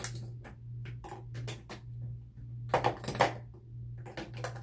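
Small makeup items, such as pencils and cosmetic containers, clicking and clattering against each other as they are rummaged through, with a cluster of louder knocks about three seconds in. A steady low hum runs underneath.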